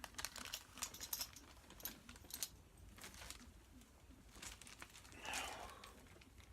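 Faint rustling of packaging with scattered light clicks and taps as small items are handled in a box, and a slightly longer rustle about five seconds in.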